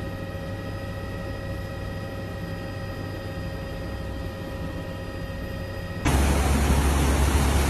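Steady aircraft engine drone with several fixed whining tones over a low rumble, the sound of the aircraft filming the overhead view. About six seconds in it cuts suddenly to a much louder rushing noise with a deep rumble.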